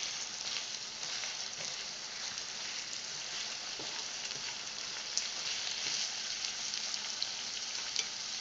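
Seafood, bell peppers and mushrooms sizzling steadily in hot oil, with a few small sharp pops.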